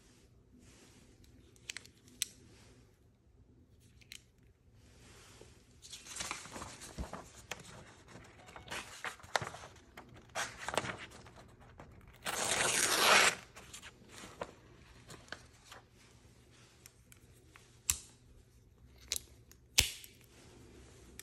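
Knife blade slicing through a sheet of paper: a few short cuts in the middle, then one longer, louder cut lasting about a second. A few sharp metallic clicks near the start and the end from a folding knife being handled.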